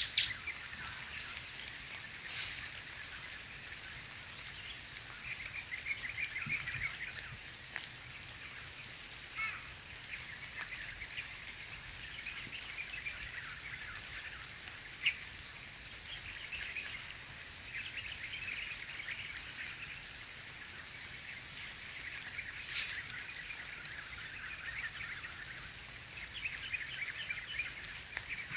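Steady light rain on an open rural plot, with scattered high chirping calls and a few sharp ticks.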